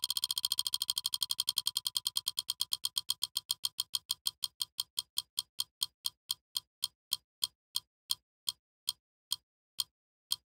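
Clock-like ticking sound effect. It starts so fast that the ticks blur together, then slows steadily until the ticks come about two-thirds of a second apart, marking time winding down through the centuries.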